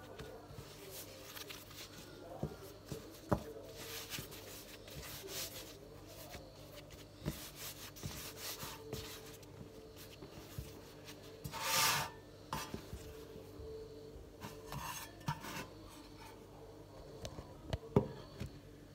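Hands folding and rolling soft bread dough on a floured countertop: soft rubbing and patting with a few light taps, and a louder scraping rub about twelve seconds in. Near the end there is a sharp knock as a loaf pan is handled.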